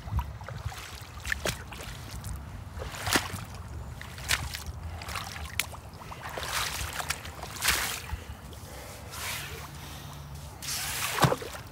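Rubber boots wading through shallow ditch water: an irregular series of splashes and sloshes as the feet step and shuffle, the loudest about eleven seconds in.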